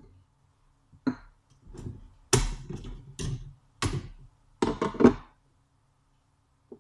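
A quick run of about seven sharp knocks and thunks, a few of them close together, as hard kitchen items are handled and set down on a worktop.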